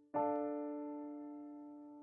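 A single electric piano chord, struck just after the start and ringing on as it slowly fades.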